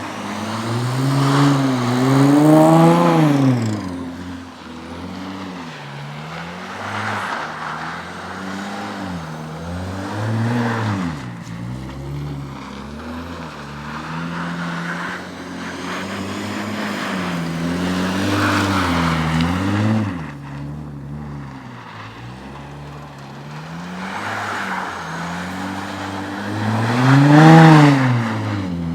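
B5 Audi S4's twin-turbo 2.7-litre V6 revving up and down over and over as the car drifts in snow. Its pitch rises and falls in repeated sweeps, with the loudest revs a couple of seconds in and again near the end.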